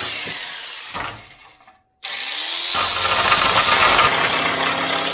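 Old Craftsman electric jigsaw sawing a pine tongue-and-groove board. The motor runs in a short burst and stops. After a brief pause it starts again, spins up with a rising whine, and saws steadily through the wood, growing louder as the blade bites.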